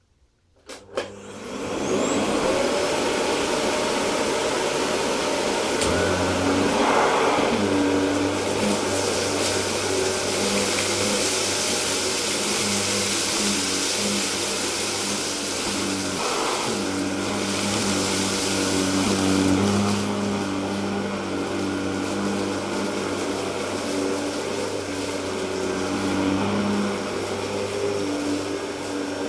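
Electrolux UltraPerformer canister vacuum with a Miele SEB 216-3 electric powerhead switching on about a second in, then running steadily over low-pile carpet while picking up rice and cat litter, its motor pitch shifting now and then. Brief crackly bursts come around 7 and 16 seconds in.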